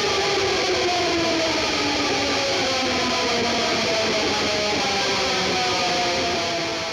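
Electric guitar music, distorted and sustained, with its pitch sinking slowly, starting to fade out at the very end.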